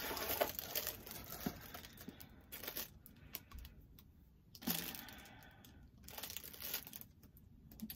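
Food packaging being handled and torn open by hand: irregular crinkling and crackling with a few sharper tears, and a quieter pause midway.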